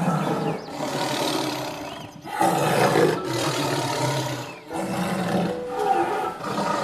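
A large animal roaring: three long, loud, rough roars in a row, each breaking off briefly before the next.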